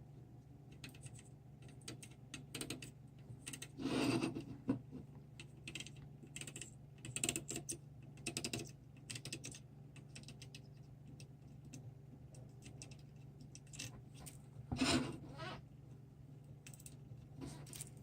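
Irregular small clicks and scrapes of hand tools being handled on a workbench while desoldering a surface-mount chip. There are two louder scraping knocks, about four seconds in and near fifteen seconds, over a steady low hum.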